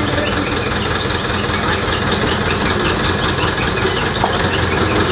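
Heavy engine of the lifting crane running steadily as it holds the recovered car up on its hook.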